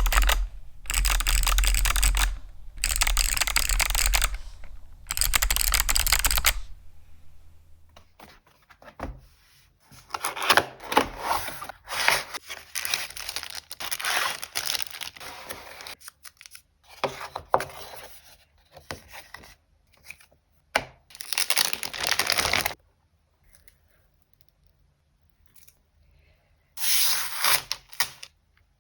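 Packaging being torn and handled: four long ripping strokes in the first six seconds or so, then scattered rustling and crinkling, and one more rip near the end.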